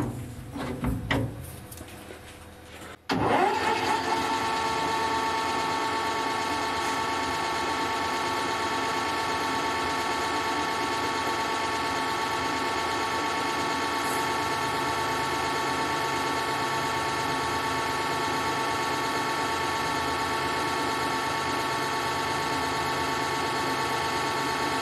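Small metal lathe running, turning a large steel workpiece with a positive-rake carbide insert: a steady machine whine made of several fixed tones that starts abruptly about three seconds in and holds even.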